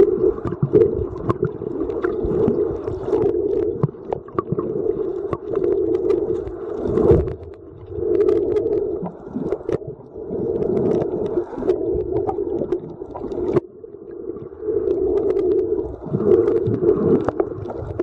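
Muffled underwater sound recorded through a camera under water: swelling rushes that come and go every couple of seconds, with scattered small clicks.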